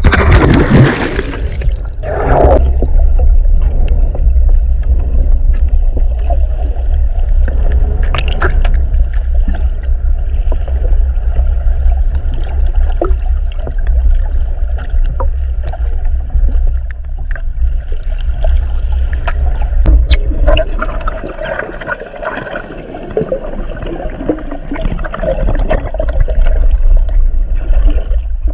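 Underwater sound through a GoPro's waterproof housing: a loud, muffled low rumble of moving water with gurgling and occasional clicks. It opens with a splashy burst as the camera goes under.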